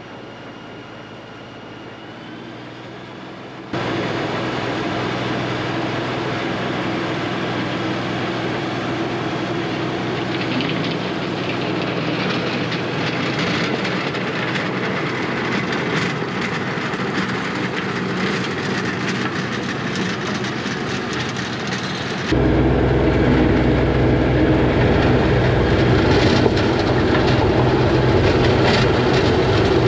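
Compact diesel tractor engine working under load while its PTO-driven rotary tiller churns through the soil, a steady mechanical drone. It jumps louder about four seconds in, and louder and deeper again about twenty-two seconds in, when it is heard from on the tractor beside the tiller.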